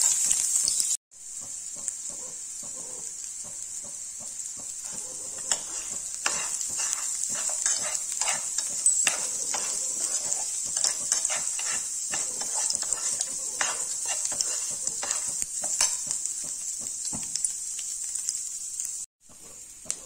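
Boiled horse gram frying in oil in a nonstick pan, sizzling steadily, while a slotted metal spatula scrapes and stirs through it in repeated strokes. The sound drops out briefly about a second in and again near the end.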